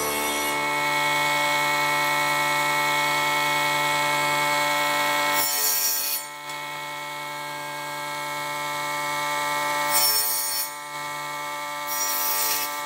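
Table saw with a circular blade running with a steady motor whine, cutting a piece of stag antler: three short bursts of harsh cutting noise, one near the middle and two near the end, as the antler is fed into the blade.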